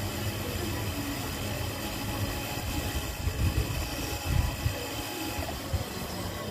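Flex-shaft grinder handpiece running steadily while a needle file is held against the small silver earring post spinning in its chuck, truing the post's flattened base round. A few louder low rumbles come about halfway through.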